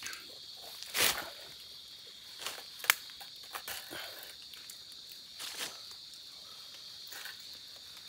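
Insects droning steadily at a high pitch, with short rustles of leaves, leaf litter and clothing as a person climbs through a barbed-wire fence. A noisy rustle comes about a second in and a sharp click about three seconds in.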